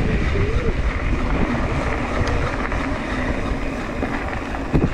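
Wind buffeting the microphone of a camera on a Santa Cruz Hightower mountain bike as it rolls down a dirt trail, over a steady rumble from the tyres. A sharp knock comes near the end.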